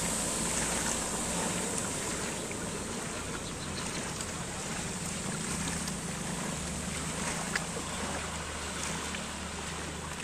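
Vehicles driving through floodwater on a road: a steady rush of splashing water, loudest at the start as an SUV ploughs past. A low engine hum comes in during the second half as a motorcycle rides through.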